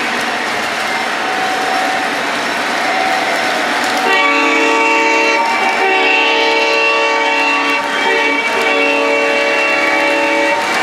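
Lionel O-gauge model of the Southern Pacific heritage diesel #1865 running on three-rail track with a steady rolling noise; about four seconds in, its onboard sound system sounds the horn in three long blasts.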